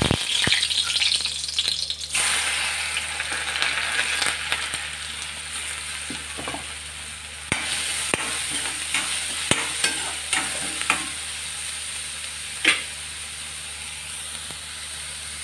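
Chopped onions going into hot oil in a metal kadai: a loud sizzle that eases after a couple of seconds into a steady frying hiss. A metal spatula stirring the onions scrapes and taps against the pan several times in the second half.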